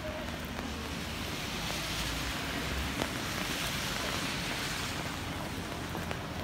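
Steady hiss of rain on a wet city street, swelling for about three seconds in the middle.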